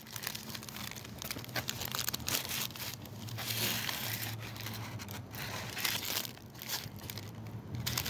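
Paper sandwich bag crinkling and tearing as it is opened and a churro is slid out, irregular rustles and crackles throughout, over a low steady hum.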